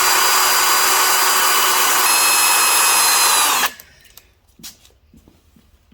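Power drill running at steady speed, boring into a broken bellhousing bolt in a small-block Chevy 350 block; it stops and winds down about three and a half seconds in. A few faint clicks follow.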